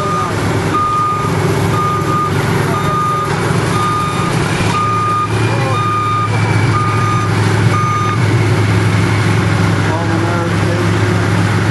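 Reverse alarm beeping about once a second as a boat-hauling truck backs its multi-axle hydraulic trailer under a boat, over the steady running of the truck's engine. The beeping stops about eight seconds in.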